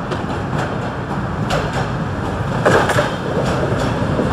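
Passenger train rolling past, a steady low rumble with irregular sharp clicks of wheels over rail joints.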